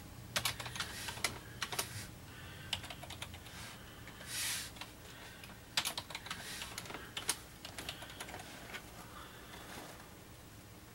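Typing on a computer keyboard: an irregular run of key clicks with a brief hiss around the middle. The keystrokes stop about a second before the end.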